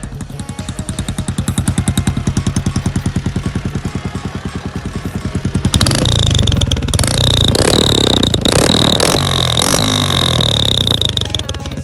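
Honda XLR 125 ES single-cylinder four-stroke engine breathing through a Roncar estralador sport exhaust, idling with an even pulse of about ten beats a second. About six seconds in it is revved up several times in quick blips.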